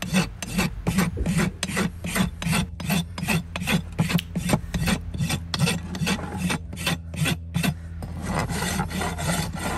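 A farrier's steel hoof rasp is filing a horse's hoof wall in regular back-and-forth strokes, about three a second. Near the end the strokes turn shorter and smoother as the rasp works along the hoof's lower edge.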